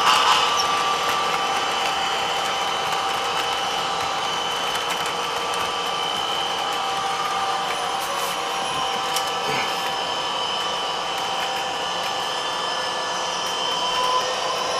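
HO-scale model train running on its layout track: a steady electric-motor whine with the rolling sound of the wheels on the rails, and a couple of light clicks about halfway through.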